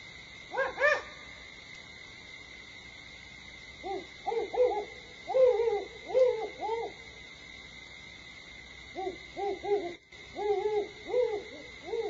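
Great horned owl hooting: two rhythmic series of low, soft hoots, one in the middle and one near the end, preceded about a second in by two short, higher-pitched call notes.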